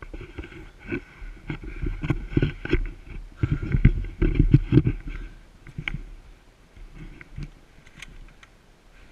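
Handling noise on a GoPro's microphone: irregular knocks and rubbing with a low rumble, busiest in the middle and dying away after about six seconds.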